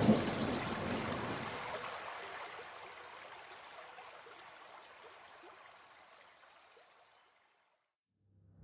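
Rushing water noise, fading slowly to silence over about seven seconds. A low steady hum begins just before the end.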